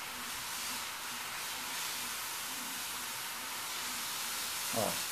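A steady hiss throughout, with one brief, louder pitched sound just before the end.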